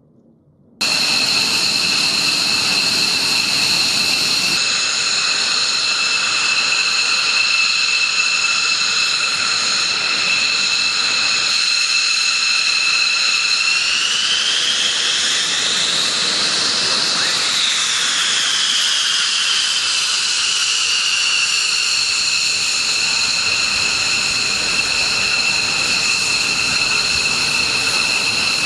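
Fighter jet engine whining steadily with several high tones. It comes in abruptly about a second in. Around the middle the pitch rises and then settles back down, as the engine is throttled up and eased off.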